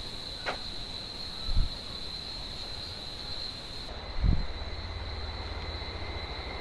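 Steady high-pitched insect buzz from the jungle over a low outdoor rumble, with two low thumps of wind or handling on the microphone, one about a second and a half in and another a bit past halfway.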